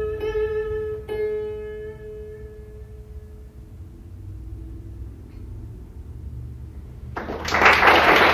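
Sixteen-string Chinese zheng with metal strings: a few final plucked notes ring out and fade over a couple of seconds, ending the piece. Audience applause then breaks out about seven seconds in and is the loudest sound.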